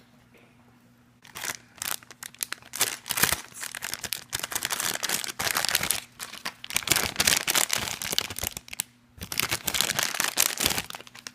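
Blind-bag packaging being torn open and crinkled by hand, a dense crackling rustle that starts about a second in and pauses briefly near the end.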